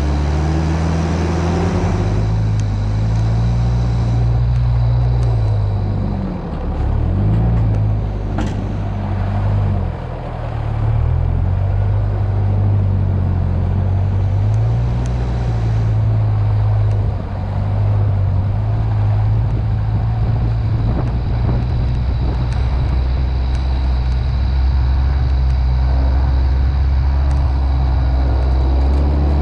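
Mitsubishi Pajero's engine running under load as it drives through deep mud ruts, its revs dropping and picking up again a few times about six to ten seconds in.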